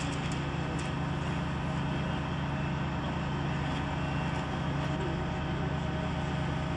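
A steady low mechanical hum with a background haze, with faint voices near the end.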